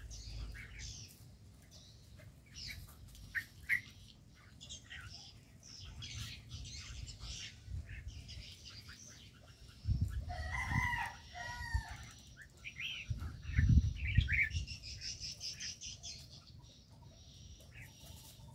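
Birds in an aviary: many short high chirps keep going, with a longer pitched call about ten seconds in. Two bouts of wing flapping, around ten and fourteen seconds in, are the loudest moments.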